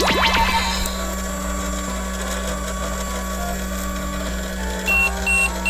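Toy microwave running: a steady electronic hum, starting with a rising sweep and a few clicks, then a series of short high beeps near the end signalling that the cooking cycle is done.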